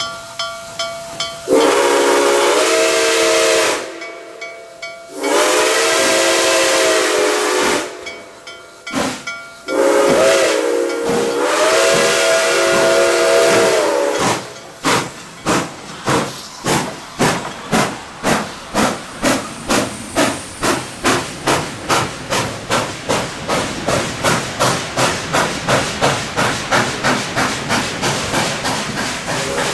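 Nickel Plate Road 765, a 2-8-4 Berkshire steam locomotive, sounds its chime whistle in three long blasts, the last one held longest. It then works away with exhaust chuffs that quicken steadily as it gathers speed.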